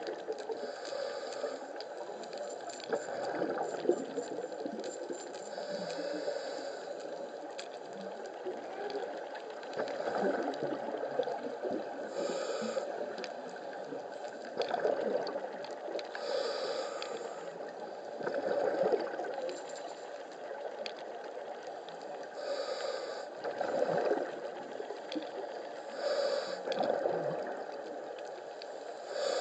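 Scuba diver's breathing heard underwater: regulator exhalations release bubbles that gurgle and hiss in bursts every few seconds over a steady water noise.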